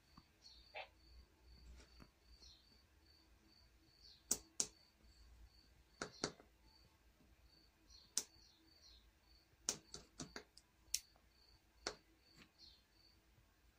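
A dozen or so sharp, irregular clicks from a finger pressing the push buttons of a small digital display module. A faint high chirping pulse repeats several times a second behind them, over a faint low hum.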